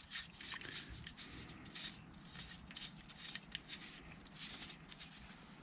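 Faint rustles and light clicks of nitrile-gloved hands handling a small metal fuel pressure regulator housing and its plug.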